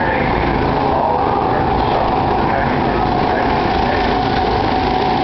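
Go-kart engines running steadily as karts drive around the track, a constant drone with a steady mid-pitched hum.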